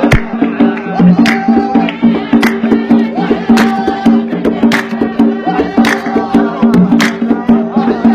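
Traditional Yemeni dan folk music without singing: sustained instrument tones over a regular hand-percussion beat, with a loud strike about every second and lighter strikes between.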